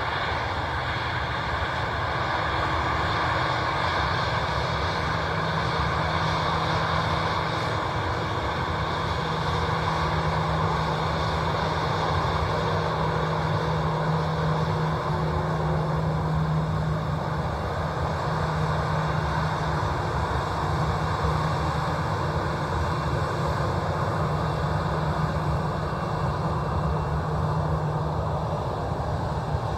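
Jet engines of an Airbus A320 at taxi power as the airliner rolls slowly along the runway: a steady rushing hum with a low, even drone underneath.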